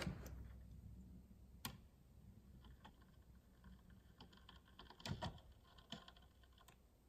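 Near silence with a handful of faint, irregular clicks and taps, the sharpest about one and a half seconds in. They come from multimeter probes and wires being handled against the opened circuit board of a cordless circular saw.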